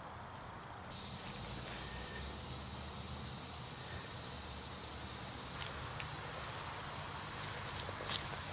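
A 400-watt fog machine spraying fog: a steady hiss that comes on suddenly about a second in, with a low hum beneath it. A short click sounds near the end.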